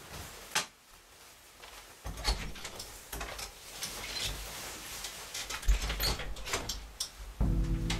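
Clicks, knocks and clatter of a door and cupboard being opened and things handled, over a low rumble from about two seconds in. Music comes in near the end.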